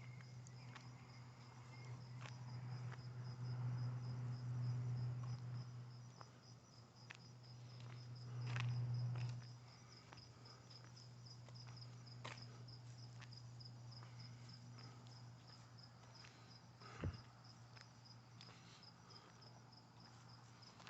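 Insects chirping steadily in an even, rapid rhythm, over a low hum that swells louder twice, with a few faint clicks and one sharp knock near the end.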